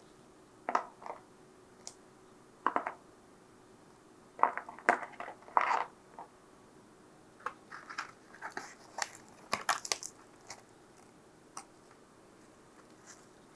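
Close-miked crunching of pizza being bitten and chewed: short crisp bursts in several clusters with pauses between, the loudest in the middle stretch, fading to a few single crunches near the end.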